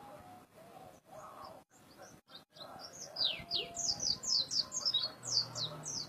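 Caged white-eye (pleci) singing: a quick run of high, sharply falling chirps that begins about halfway through and runs on without a break.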